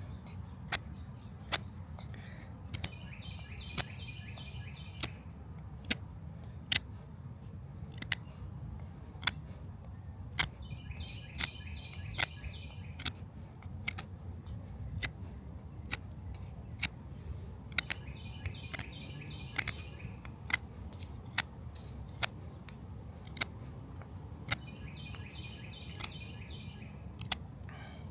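Drachenader Y-M pocket knife's blade whittling a stick to a point, short sharp cutting clicks about one or two a second. A bird sings a brief trill about every seven or eight seconds.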